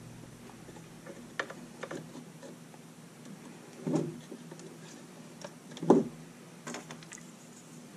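Wooden spring clothespins clicking shut onto the edge of an acrylic ramp panel, with light clicks and taps of the plastic parts being handled. Two heavier knocks come about four and six seconds in, the second the loudest.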